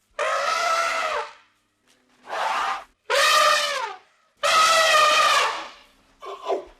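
An animal calling repeatedly: five drawn-out calls, each up to about a second long, with the pitch sagging at the end of most of them.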